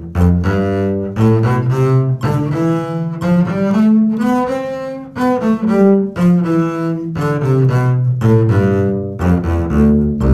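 Double bass played with the bow (arco), a two-octave scale in a rhythmic pattern: each note is repeated in a short group of strokes, the scale climbing for about five seconds and then coming back down.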